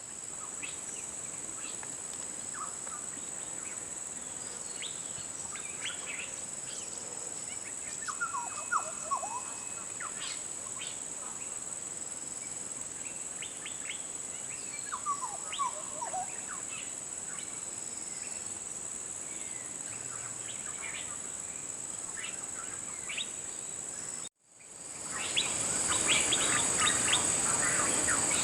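Wild bird calls over a steady, high-pitched insect drone. There are scattered chirps and two short falling call phrases, and the birds and insects grow louder and busier after a brief break near the end.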